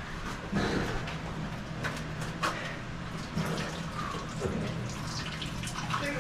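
Shallow cave stream water splashing and sloshing as someone crawls through it, with scattered small knocks and drips.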